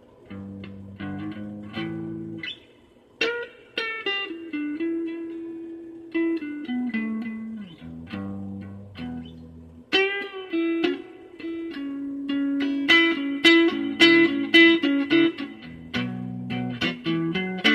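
Electric guitar played through a Crate amplifier: a run of picked single notes and short chords with string bends that slide the pitch up and back down. The playing gets louder and busier about thirteen seconds in.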